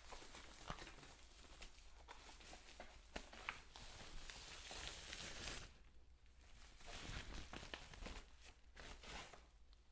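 Faint rustling of a plastic protective sleeve and a paper setup sheet as they are handled and pulled off a computer monitor, with small handling clicks. The rustle is densest about four to five seconds in.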